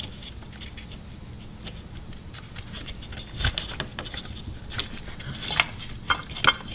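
Scattered light clicks and knocks of plastic electrical connectors and wiring harness being handled and pushed onto engine sensors, with a duller knock about three and a half seconds in and a few sharper clicks near the end.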